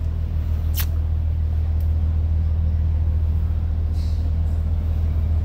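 Steady low rumble, with one sharp click about a second in and a short hiss near the end.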